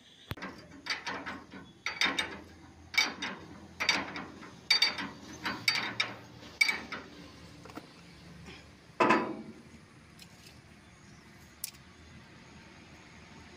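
Spanner tightening a nut on a threshing machine's steel frame: a run of metal clicks and scrapes, about one stroke a second, then after a short pause one louder clank.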